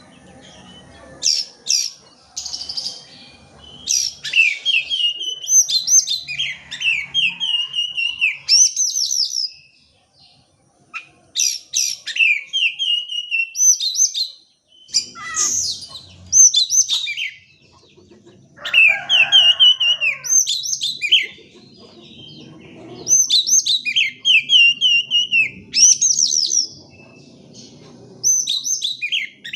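Oriental magpie-robin (kacer) singing loud, varied phrases of quick whistles and rapid falling notes, in repeated bursts broken by brief pauses.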